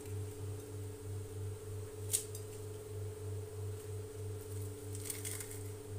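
Crisp, deep-fried mathri being crushed and crumbled by hand: a sharp crack about two seconds in and a brief crackle near the end, over a steady low hum.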